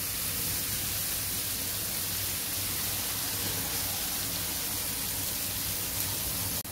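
Marinated chicken pieces sizzling steadily as they fry in butter in a nonstick frying pan.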